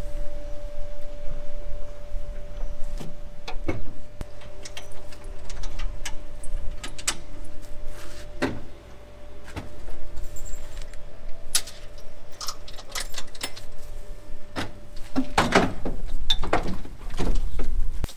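Metal clanking and rattling of a tilting cattle hoof-trimming crate as a cow is brought in and strapped, with irregular knocks throughout and a busier run of loud clanks near the end. A steady hum runs underneath and stops a few seconds before the end.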